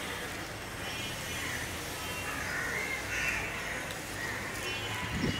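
Several harsh bird calls over a steady hum of outdoor background noise.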